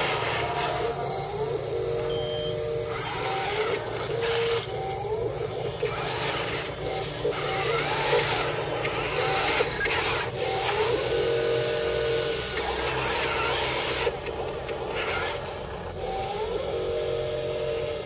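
Electric motors and gearboxes of a radio-controlled Huina wheel loader whining in repeated short runs, some rising in pitch, as it drives and works its bucket. Gravel and soil crunch under the tyres and bucket.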